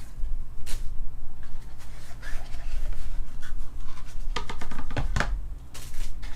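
Trading cards being handled on a table: scattered light taps and slides, a cluster of them about four to five seconds in, over a steady low hum.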